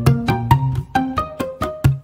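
Background music: a light, bouncy tune of short notes that start sharply and fade quickly over a repeating bass.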